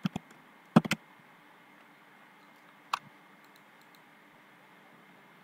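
A few short, sharp computer mouse clicks: a quick pair at the start, another pair just under a second in, a single click about three seconds in and another at the end, over faint background hiss.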